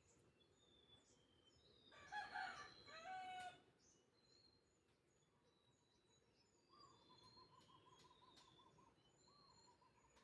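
A rooster crows once, about two seconds in, for about a second and a half. Faint bird chirps sound throughout, and a quiet warbling trill comes in later.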